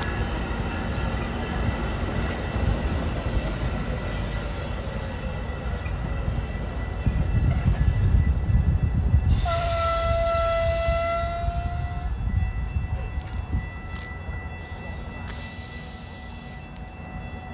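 Metra bilevel commuter train moving past the station platform with a steady low rumble. Around the middle a single high tone holds for about two and a half seconds.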